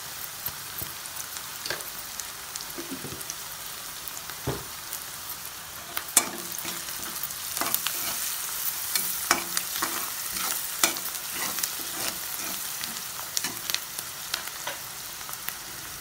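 Chopped onions sizzling in hot oil in a metal kadai, sautéing until lightly golden, with a metal spatula scraping and clicking against the pan as they are stirred. The stirring grows busier and louder from about six seconds in.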